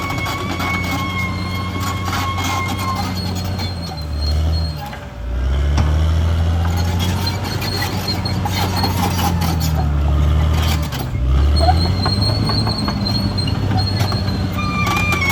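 CAT D6R XL bulldozer's diesel engine running under load, its pitch sagging twice as it lugs, about four seconds in and again about eleven seconds in, then recovering. A high squeal, typical of steel tracks, sounds in the first few seconds and again near the end, over a rattle of clicks.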